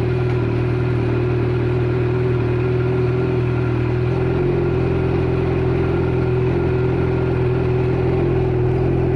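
Suzuki GSX-R inline-four motorcycle engine idling steadily through an M4 GP slip-on exhaust with its sound baffle removed.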